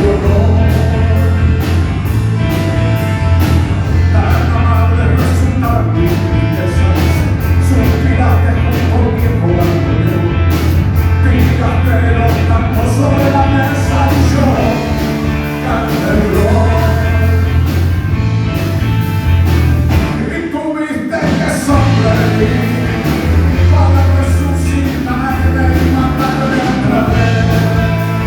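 Rock band playing live with a singer: loud drums, bass and guitar under sung vocals. The band drops out for a brief break about two-thirds of the way through, then comes back in.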